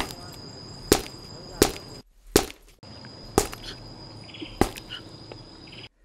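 Six sharp, heavy chopping blows struck about a second apart, over a steady high-pitched drone of cicadas.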